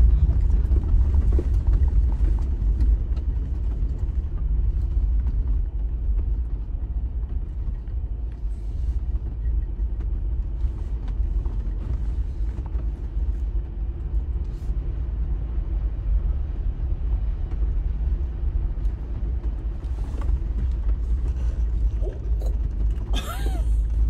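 Off-road vehicle's engine and drivetrain running with a steady low rumble, heard from inside the cab while driving a rough dirt trail.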